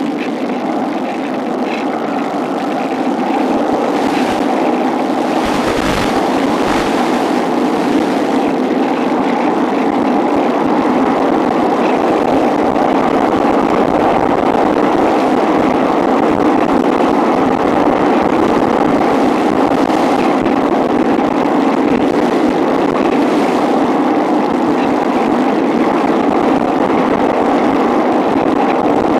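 Steady rushing noise picked up on board a Cularis electric RC motor glider in flight: air rushing past the airframe in strong wind. There are a few brief knocks about four and six seconds in.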